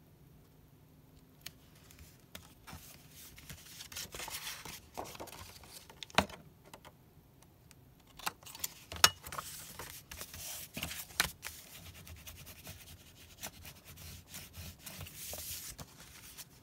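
Paper rustling and rubbing as small taped paper strips are pressed onto a card front and the card stock is picked up and moved about, with a few sharp taps and clicks in between.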